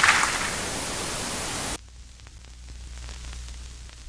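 Steady television static hiss that cuts off abruptly a little under two seconds in. It leaves a quiet low electrical hum with faint crackles.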